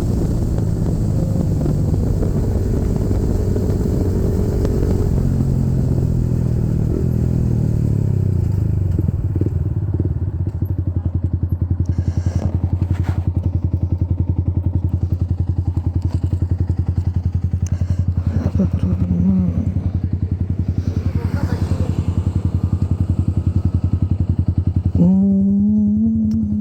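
Yamaha MT-15's single-cylinder engine running through a full-system Akrapovic replica exhaust. It holds higher revs at first, then drops to a steady, pulsing idle about eight seconds in, with a small throttle blip partway through and a sharper blip near the end.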